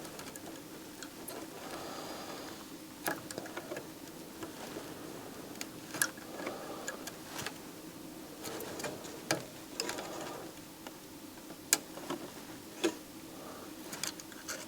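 Irregular small clicks and taps of hand tools on a circuit board while shorted chip pins are desoldered, over a steady faint hum.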